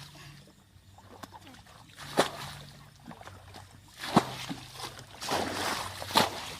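Water splashing and sloshing, with sharp knocks about every two seconds; the splashing grows busier in the second half.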